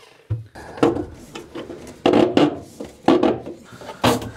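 A series of knocks and rubbing against wood as someone works bent into a boat's wooden clothing locker, handling conduit at the opening under the cabin sole.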